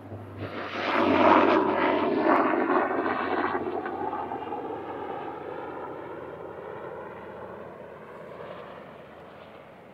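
Noise of a passing engine, swelling quickly about a second in and then fading slowly over several seconds.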